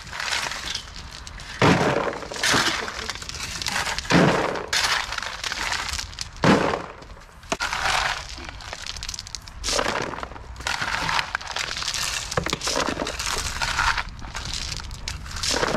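Shovels and rakes scraping and scooping through rocky gravel, the stones clattering and crunching, with a few sharper, louder scrapes along the way.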